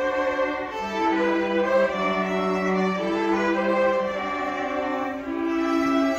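High school string orchestra, violins and cello bowing, playing held notes in chords that change about every second.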